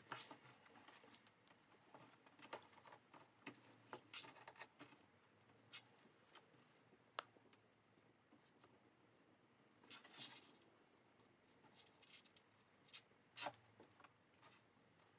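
Faint rustling of cotton fabric with scattered small clicks and taps as hands handle the bag and straps and lay a tape measure on a table. A few louder rustles come later on.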